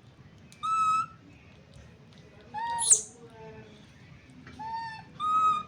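Baby monkey giving high, clear coo calls, four short ones a second or two apart. The second call ends in a sharp high squeak.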